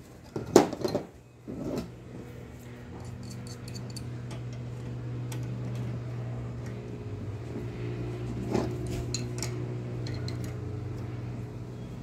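Metal clinks and clicks of wrenches and tools on the pilot fittings of a gas water heater's burner assembly, with one sharp click about half a second in. Under them runs a steady low machine hum that starts about a second in and drops slightly in pitch around the middle.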